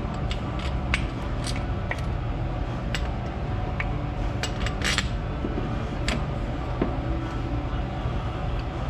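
Small metal parts and hand tools clinking and tapping against each other, a dozen or so separate sharp clicks at irregular intervals, over a steady low hum.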